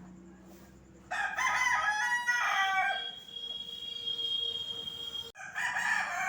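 Rooster crowing: a long crow starts about a second in and ends in a drawn-out held note, and after a brief break a second crow begins near the end.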